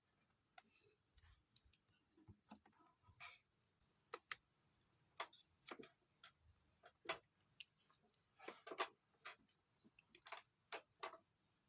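Small screwdriver driving screws into a ThinkPad T440's bottom cover: a run of irregular light clicks and ticks, the loudest about seven and nine seconds in.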